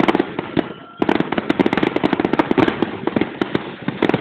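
Fireworks finale: a dense, rapid barrage of shell bursts and crackling. There is a brief lull before the bangs come thick again about a second in.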